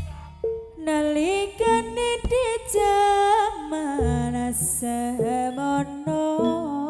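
Live East Javanese jaranan music: an ornamented, sliding melody line with a wide, wavering vibrato over gamelan accompaniment, with a few short drum strokes.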